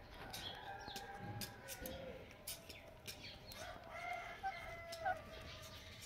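A rooster crowing twice, each crow a long pitched call of about two seconds, with scattered faint clicks.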